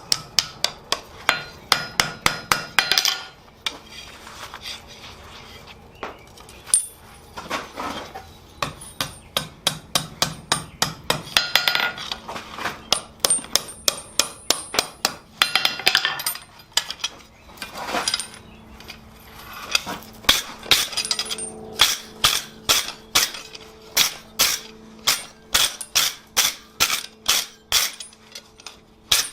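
Hand hammer striking hot steel on an anvil: runs of quick, ringing blows drawing out small bar stock into a taper, with short pauses between runs and a steadier run of about two blows a second near the end. A faint steady hum runs underneath.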